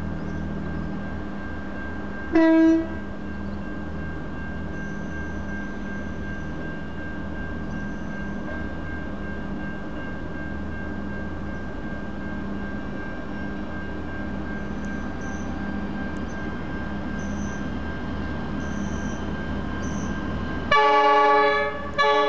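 Diesel locomotive horn sounding as a train approaches: one short single-note blast about two seconds in, then near the end a longer, louder multi-note chord blast and a brief second toot. A steady low drone runs underneath.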